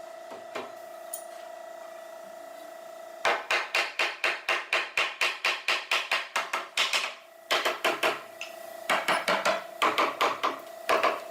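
Rapid hammer blows on wood, about four a second, starting a few seconds in and coming in runs broken by short pauses.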